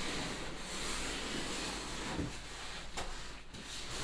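Steady rubbing and scraping of packaging material being worked off a new refrigerator, with a short pause near the end.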